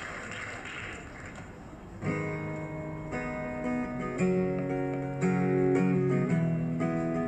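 A steady hiss of ocean surf, then about two seconds in an acoustic guitar starts strumming chords, a new chord roughly every second, growing louder.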